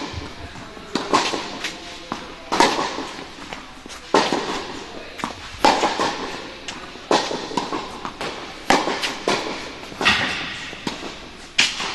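Tennis balls struck by rackets and bouncing on an indoor hard court in a steady baseline rally: sharp pops about every second and a half, each with a short echo from the hall.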